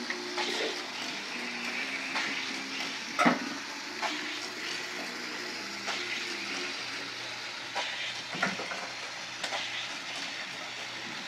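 Battery-powered toy trains and cars running on plastic track: a steady hiss with scattered clicks and clacks, the loudest a sharp knock about three seconds in.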